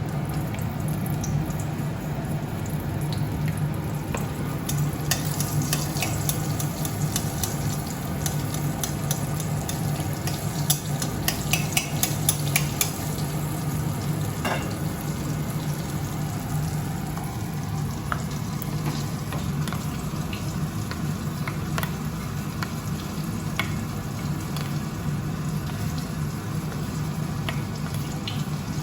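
Batter-coated katla fish pieces frying in hot oil, sizzling steadily with sharp crackles and spits, which come thickest between about five and thirteen seconds in.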